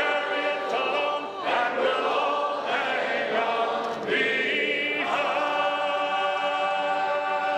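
Choral music: voices holding long chords that change every second or so, at a steady level.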